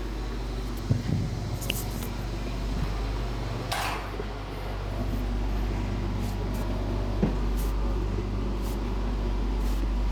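Steady low mechanical hum, with a few faint ticks and a short hiss about four seconds in.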